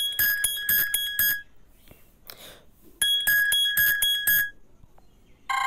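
Phone ringtone previews playing: an electronic alarm-like ringtone, a rapid string of beeps over a steady high tone lasting about a second and a half, sounds twice about three seconds apart. Right at the end a different, lower ringtone starts.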